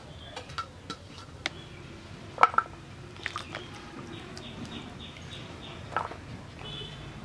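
Pieces of bottle gourd being handled and laid onto a ceramic plate: scattered light knocks and clicks, the loudest a close pair about two and a half seconds in and another near six seconds.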